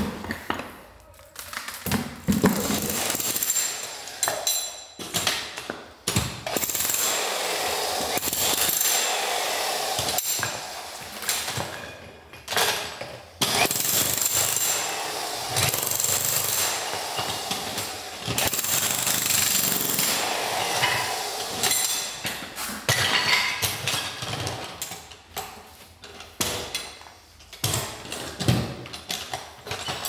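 Jackhammer chiselling out terracotta tiles and the concrete bed beneath them at the base of a fireplace. It runs in stretches of several seconds, broken by short stops and scattered knocks.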